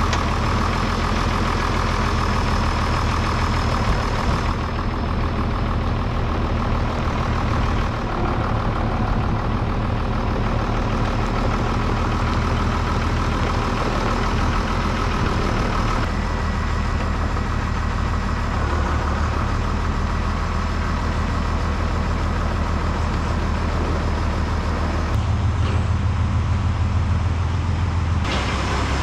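International Harvester tractor diesel engine idling steadily. Its low rumble grows louder about 25 seconds in.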